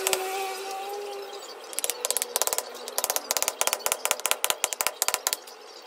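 Wooden mallet striking a chisel as it cuts into a wood stump, in quick strikes several a second, with a pause near the end. A short steady tone is heard over the first second or so.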